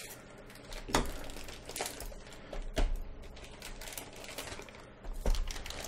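Scissors cutting a black plastic poly mailer, and the thin plastic crinkling as it is handled, with a few sharp clicks spread through.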